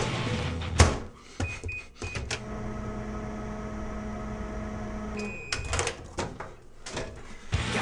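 Microwave oven in use: a clack as the door shuts, three short keypad beeps, then a steady hum for about three seconds. It stops with a beep, followed by a few clicks as the door is opened.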